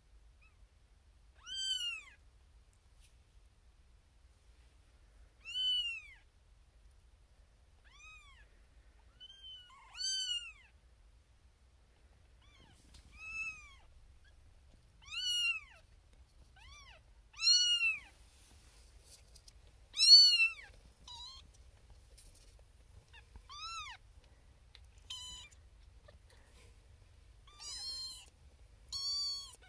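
A very young Siamese kitten mewing over and over: about fifteen high, arching cries that each rise and fall in pitch, one every one to four seconds, loudest about two-thirds of the way through. The kitten is crying for attention from its owner.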